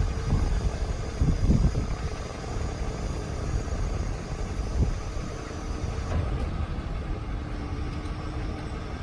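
Ford F450's 6.4-litre Power Stroke V8 turbo diesel running steadily with the PTO engaged, driving the bucket truck's boom hydraulics. Irregular low rumbles swell over it a few times.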